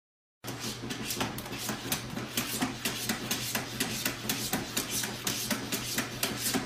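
A cat's paw scratching and tapping at a plastic automatic pet feeder in quick, irregular strokes, over a steady low hum. It starts about half a second in.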